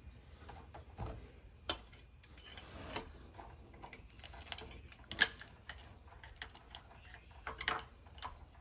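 Scattered clicks and taps of a dipstick being worked back into its tube in a jet ski's engine bay, with one sharp tick about five seconds in and a small cluster near the end.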